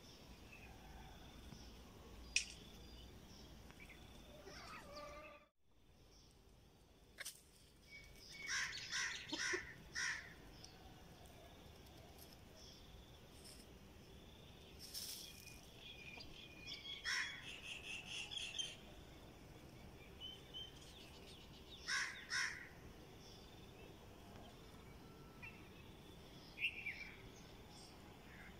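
Outdoor yard ambience with scattered bird calls: a run of about five calls, later a rapid series of short strokes, then a pair of calls and a single call near the end.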